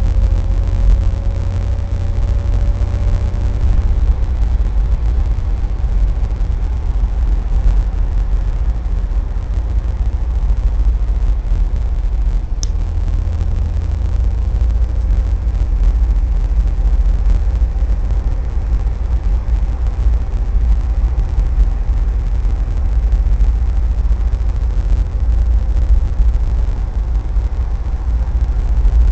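Car driving at road speed: steady low engine and tyre rumble with road noise, a faint rising whine in the first few seconds and a single short click about halfway through.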